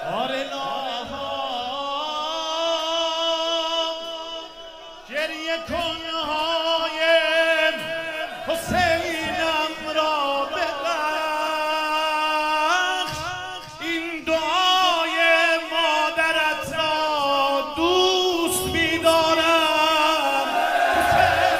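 A male eulogist (maddah) singing a Shia religious lament solo into a microphone, without clear words, in long wavering held notes with short breaks.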